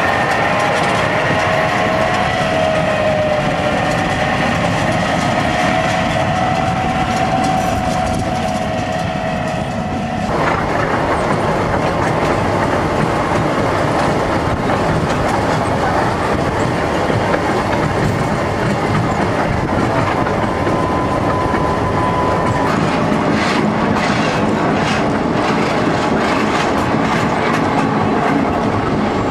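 Snowdon Mountain Railway diesel rack locomotive running close by with a steady engine note. About ten seconds in, this changes to the continuous rattle and clatter of the train riding down the rack-and-pinion line, heard from the carriage, with sharp clicks thickening near the end.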